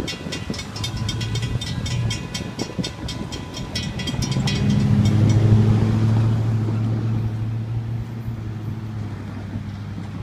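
Railroad crossing bells ringing rapidly as the gates lift, stopping about four and a half seconds in. Then a road vehicle's engine hum swells and holds steady.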